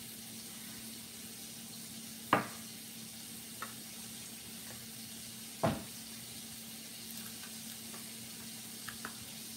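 Faint steady sizzle of broccolini sautéing in butter and olive oil in a pan, with a low hum under it. Two sharp knocks come about two and a half and five and a half seconds in, and a few lighter ticks follow.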